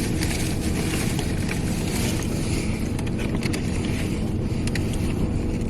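Steady low rumble of a high-mileage work truck's engine running, heard inside the cab, with a few faint clicks over it.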